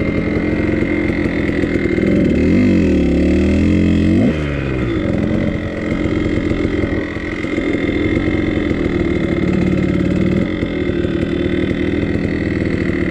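Kawasaki KDX200 single-cylinder two-stroke dirt bike engine running at low speed. It is blipped up and down about two seconds in, then drops back and runs steadily at low revs.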